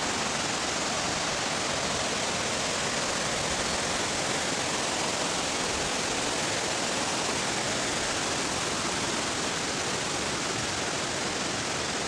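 Steady, even rush of water falling down a waterfall, with no breaks or changes.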